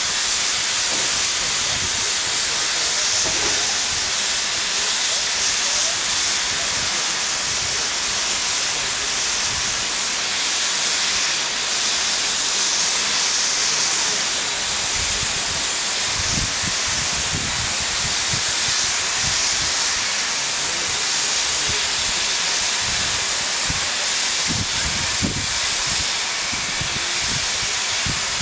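Steam locomotive blowing off steam through its safety valves: a steady, loud hiss, with a few low thumps around the middle and near the end.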